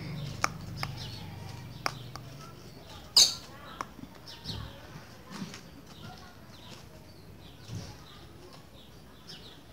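Green-winged saltator (trinca-ferro) in a wooden cage: a few sharp taps in the first few seconds, the loudest just after three seconds, then scattered faint high chirps and call notes rather than full song.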